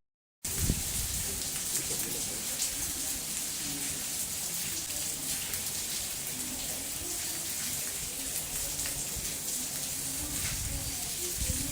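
Heavy rain falling: a steady, even hiss of rain on surfaces, after a split-second dropout at the very start.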